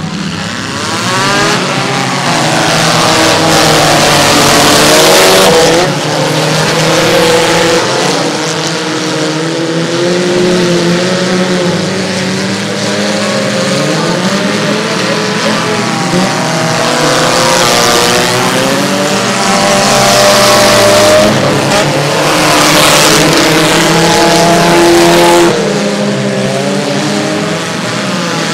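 Engines of several small cars in a mini-car demolition derby, revving hard at once, their pitches rising and falling and overlapping, over a rough haze of noise from the cars on the dirt. The sound is loud throughout and dips briefly about halfway through.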